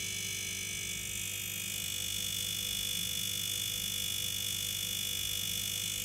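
Ariston No Frost refrigerator's hermetic R134a compressor running with a steady buzzing hum and a thin high whine, the condenser fan held still. The buzz is the sign of a failing compressor, which the technician judges needs replacing.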